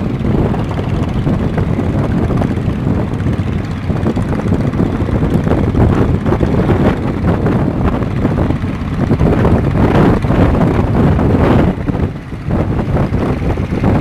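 Strong sea wind buffeting the microphone, a loud, uneven low rumble that dips briefly about twelve seconds in.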